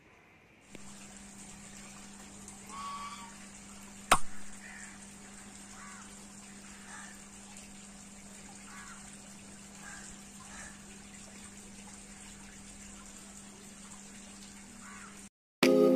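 Faint splashing and lapping of pond water as a Muscovy duck swims and dabbles with its head under the surface, over a steady low hum and hiss. A single sharp click about four seconds in.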